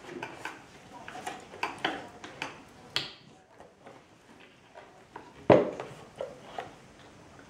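Cutlery and dishes clinking and knocking in a run of short, irregular clicks, with one louder knock about five and a half seconds in.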